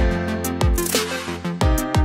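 Background music with a steady beat: a deep kick drum that drops in pitch on each hit, quick high hi-hat ticks and held chords.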